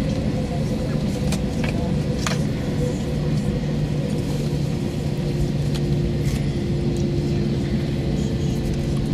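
Airbus A321-200 cabin noise as the airliner rolls along the ground: the jet engines and airframe give a steady rumble with a low hum that grows stronger about three to four seconds in, and a few faint rattles.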